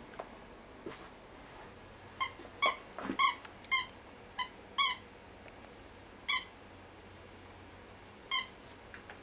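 Small plush squeaky toy from a Hide-A-Squirrel set being squeaked by a dog biting on it: a run of about six short squeaks in quick succession between two and five seconds in, then two more spaced out.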